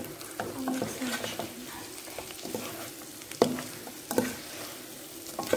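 Sauced chicken pieces sizzling in a hot pan while a spoon stirs them, scraping and knocking against the pan several times.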